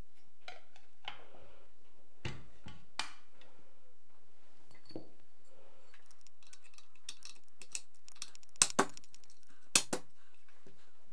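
Light metallic clicks and rattles of a Vityaz-SN submachine gun and its handguard parts being handled on a bench, with a few sharp clacks near the end as the B-19N upper handguard is pressed into place on top.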